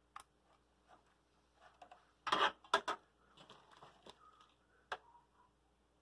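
Hands working computer cables and plastic connectors: scattered light clicks, a louder rustling scrape about two and a half seconds in, then a few sharp clicks, the last near five seconds.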